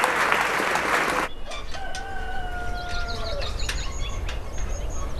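Applause for about a second, cut off abruptly, then a rooster crowing once: one long held call that drops in pitch at the end. Small birds chirp around it over a low rumble.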